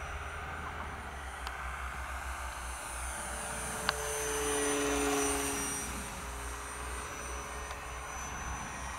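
Electric motor and propeller of a small Dancing Wings Hobby Savage Bobber RC plane, running at half throttle on a 2S battery, as the plane flies past. The whine swells about four to five seconds in and drops in pitch as it goes by.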